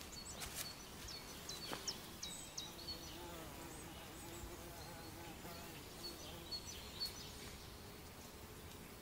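Faint woodland ambience. Small birds chirp in the first couple of seconds, with a few light taps, and from about three seconds in a soft wavering tone runs under the background.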